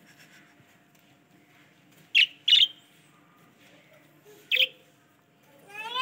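Budgerigar giving three short, sharp squawks while being handled out of a mesh bag: two close together about two seconds in, and one more past four seconds.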